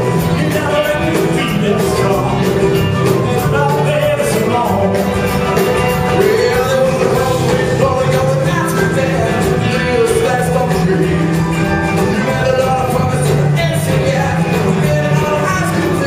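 Rockabilly band playing live with singing: upright bass, drum kit, guitars and piano together.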